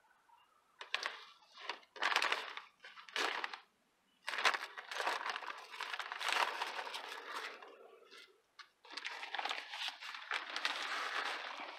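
A bag of 10-10-10 granular fertilizer rustling and crinkling as it is opened and handled, in several bursts of one to three seconds with short pauses between.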